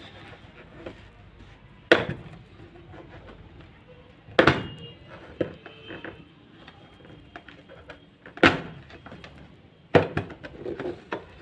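Plastic lunch box being opened and handled, its clip latches and transparent lid knocking and clicking: four sharp knocks a few seconds apart, with lighter clicks between.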